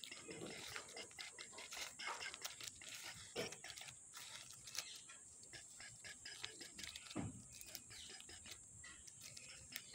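Plastic toy trucks and a toy bus being pushed and set down on dry dirt by hand: faint scraping, with light clicks and knocks of plastic on soil. A few short low vocal sounds come at about half a second, three and a half seconds and seven seconds in.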